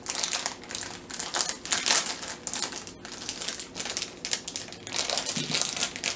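Shiny purple wrapping being crinkled and torn open by hand, a continuous irregular crackle as small items are unwrapped.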